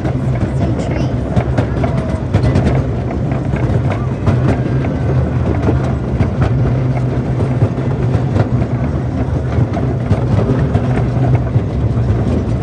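Ride-on miniature train rolling along its track, heard from an open passenger car: a steady low rumble from the wheels with scattered clicks and rattles from the cars.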